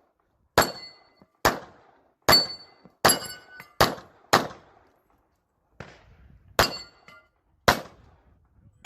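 Glock 22 .40 S&W pistol firing about nine shots at steel targets, roughly one a second with a short pause around five seconds in. Several shots are followed by the brief metallic ring of hit steel plates.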